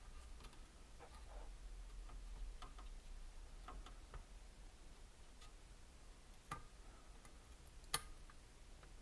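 Faint scattered clicks and light taps of small objects being handled, with two sharper clicks about six and a half and eight seconds in.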